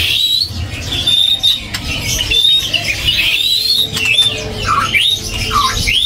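White-rumped shama (murai batu) singing a running series of clear whistled phrases, short notes that swoop up and down, with a few lower notes near the end.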